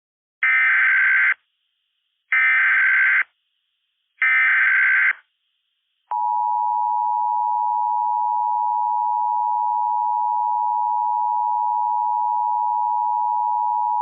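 Emergency Alert System tones: three short bursts of SAME header data, each just under a second long and about a second apart. Then the two-tone EAS attention signal starts about six seconds in and holds as one steady tone for about eight seconds. This is the opening sequence that comes before a National Weather Service tornado warning.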